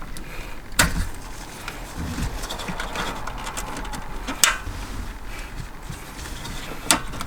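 Three sharp plastic clicks and knocks, about a second in, in the middle and near the end, with faint handling rustle between, from the factory head unit and dash trim being worked loose by hand.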